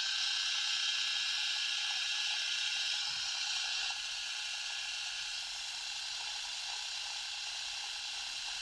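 Sejoy cordless rotary electric shaver running, its pop-up trimmer held to the moustache hairs: a steady high whir that dips slightly in level about four seconds in.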